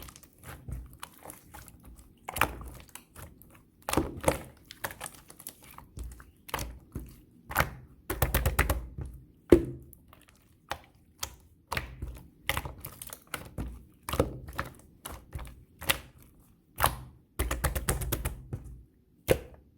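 Clear slime being squeezed and folded by hand, making irregular sharp clicks and pops. There are bursts of rapid crackling about eight seconds in and again near the end.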